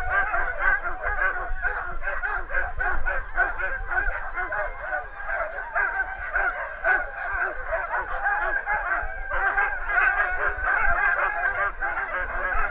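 A pack of harnessed sled dogs barking, yelping and howling together in a constant overlapping din, the dogs excited to set off on a run.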